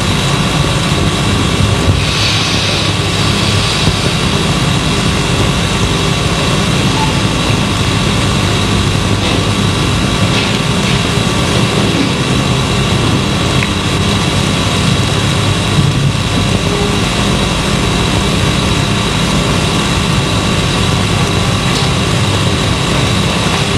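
Steady hum and hiss from an old analog soundtrack, with several constant whining tones over an even noise and no break. A few faint short ticks stand out about halfway through.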